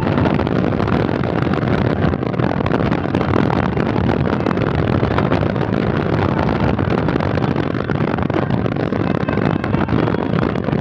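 Steady road and wind noise of a moving vehicle, heard from inside it.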